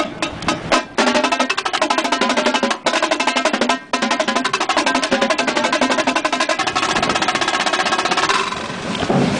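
A line of marching tenor drums (quads) played in unison in a warmup exercise: a few separate strokes, then from about a second in a fast, dense run of strokes across the drums with two very short breaks, dropping off near the end.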